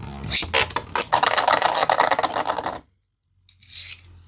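Spinning Beyblade tops grinding and clashing in a plastic stadium: a dense, loud rattling and scraping that cuts off suddenly near three seconds in, followed by fainter clicks.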